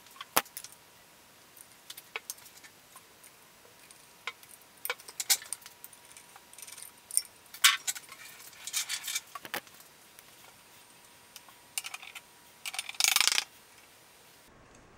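Small metal parts and tools clicking and clinking as a Dayton electric motor is being reassembled by hand, with a short scraping rush near the end.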